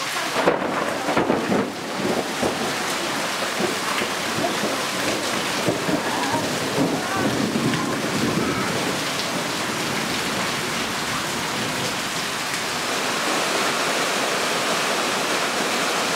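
Heavy rain falling steadily, with water pouring off the eaves of clay-tile roofs.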